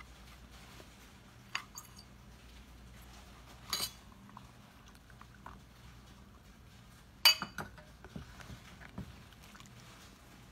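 Ladle knocking and clinking against the rim and sides of a metal soup pot while stirring vegetables in broth: a few sharp clicks, the loudest about seven seconds in ringing briefly, then several softer knocks. A low steady hum runs underneath.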